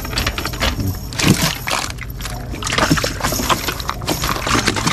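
Irregular knocks and rustling of handling in a small fishing boat, as a cast net is picked free of thorns, over a steady low hum.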